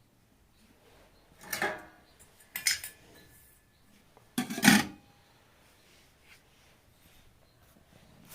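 Dishes clattering as a bowl and plate are handled: three separate knocks, about one and a half, two and a half and four and a half seconds in, the last the loudest.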